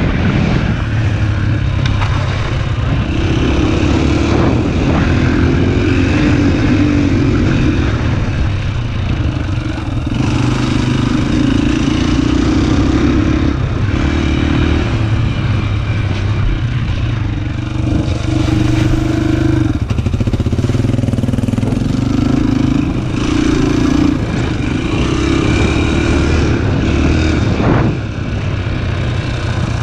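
Dirt bike engine running on a trail ride, the throttle opening and closing every couple of seconds so the engine note repeatedly climbs and drops back, heard from the rider's helmet.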